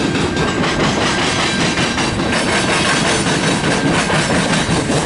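Freight train of tank cars and covered hoppers rolling past close by: a steady rumble of wheels on rail with clatter from the wheels.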